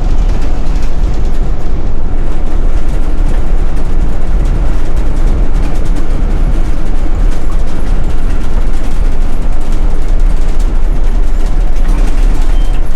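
Inside a moving city bus on snow: steady, loud engine and road rumble with a fast rattling clatter from the tire chains on the wheels.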